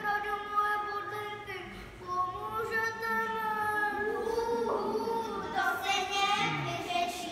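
Young children singing a slow melody with long held notes.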